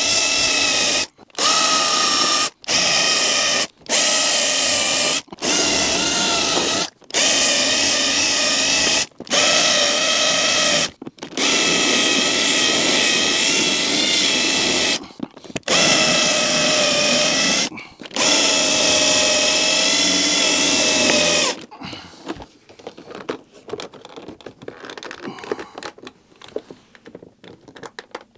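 Cordless drill running in about ten short bursts of one to four seconds each, drilling out the plastic welds that hold the armrest to the back of a Mercedes door card. About twenty-two seconds in the drilling stops, giving way to light clicks and rattles of plastic trim being handled.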